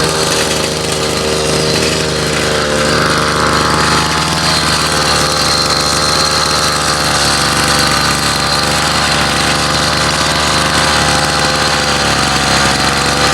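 50cc two-stroke bicycle engine kit idling steadily. Its speed shifts slightly about three seconds in, then holds even.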